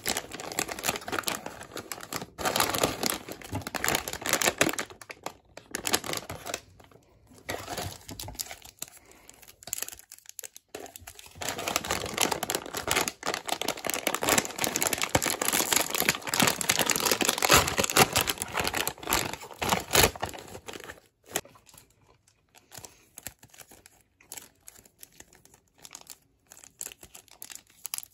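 Plastic chip bag crinkling and rustling as hands pull and tear at its top to open it, in long stretches of dense crackling with a lull in between. Near the end only scattered small crinkles as a small foil packet is picked at.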